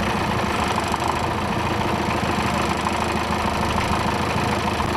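Diesel truck engine of a truck-mounted aerial lift running steadily at idle, with a low even hum.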